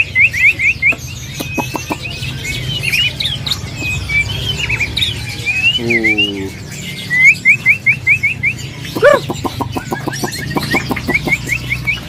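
White-rumped shama (murai batu) singing: varied whistled phrases broken by fast runs of short rising notes, about five a second, imitating the white-shouldered triller (kapas tembak) song. A few short clicks and a lower call come between the phrases.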